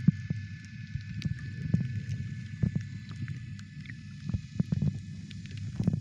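Muffled underwater sound picked up by a submerged camera: a low, uneven rumble of water moving around it, with scattered sharp clicks and a faint steady whine in the background.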